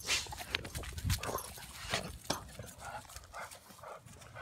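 A Rottweiler puppy and a pit bull play-wrestling: irregular scuffling and short dog noises, with a low thump about a second in.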